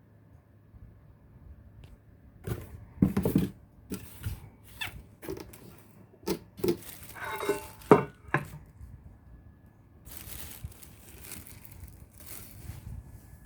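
Packaging being handled: crinkling and tearing with several knocks, loudest a few seconds in, then softer rustling near the end.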